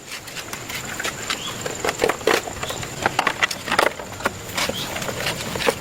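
Hand tools and small metal parts clicking and knocking irregularly as a motorbike is worked on.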